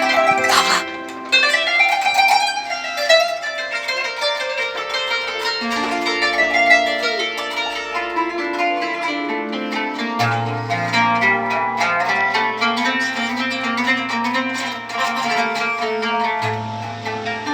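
Kanun, the Turkish plucked zither, played as a free improvisation in quick plucked runs and ornaments. Long held low notes sound beneath it from about ten seconds in.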